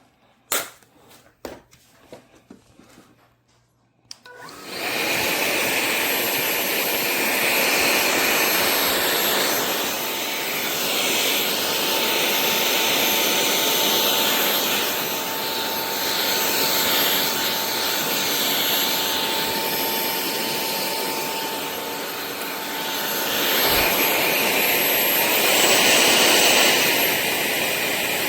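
Cordless stick vacuum cleaner: a few handling clicks, then it switches on about four seconds in and runs steadily, with a rushing airflow sound and a thin high whine from the motor.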